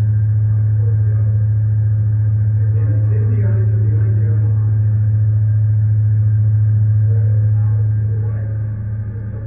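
Steady low drone of a ship's engine and machinery heard on deck, easing off about eight seconds in.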